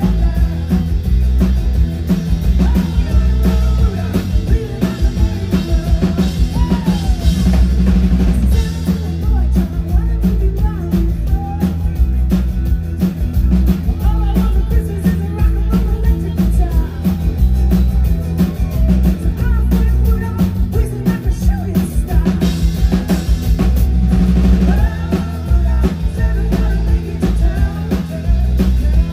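Live pop-rock band playing a song, with a driving drum kit, heavy bass and singing.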